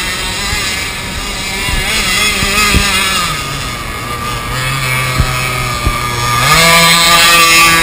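Small combustion engine of a radio-controlled boat running steadily. Its pitch drops about three seconds in and climbs back, louder, near the end, with a few sharp knocks along the way.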